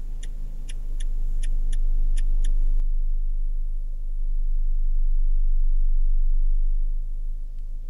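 A car driving, with a low steady engine and road rumble. A turn-signal indicator ticks about three times a second for the first few seconds, then stops suddenly.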